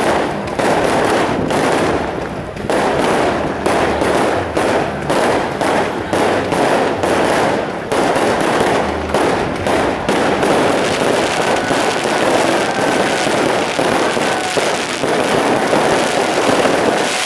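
A large bonfire burning fiercely, with a steady roar of flames and a dense, continuous crackle of sharp pops from the burning wood and brush.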